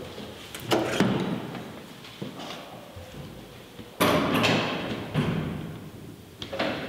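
A few heavy thuds, each trailing off in an echo, the loudest about four seconds in.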